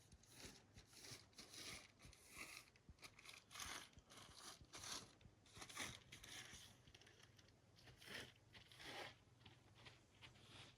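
Faint crinkling and rustling of plastic compost bags being handled and wiped clean, in quick, irregular strokes.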